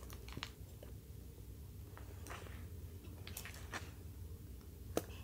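Faint clicks and taps of a phone case and beaded phone strap being handled, as the strap's cord is pushed through a hole in the case with a pen, over a low steady room hum.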